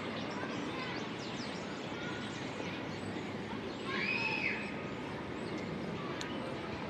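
Outdoor park ambience: a steady background hum with faint, scattered bird chirps, and about four seconds in one louder call that rises and falls.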